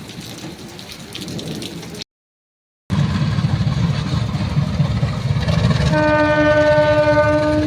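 Heavy rain, then after a brief cut a locomotive running with a heavy low rumble. About six seconds in, its horn starts one long, steady blast.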